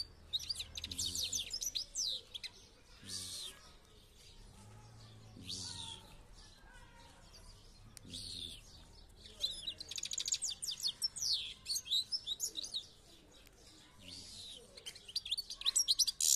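Caged European goldfinch singing: rapid twittering phrases of high chirps and trills, coming in several bursts with short pauses. The longest run is in the second half, and the loudest burst comes near the end.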